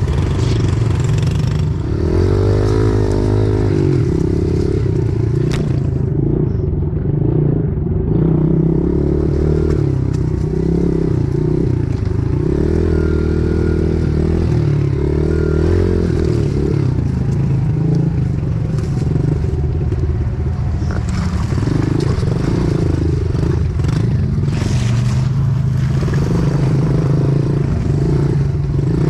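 Small single-cylinder pit bike engine running under the rider, its pitch rising and falling over and over as the throttle is worked on and off.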